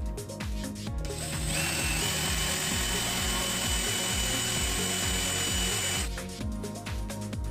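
Cordless drill driving a screw into a wooden board. The motor whines steadily from about a second in, steps up in pitch shortly after starting, and stops abruptly about six seconds in. Background music with a steady beat plays throughout.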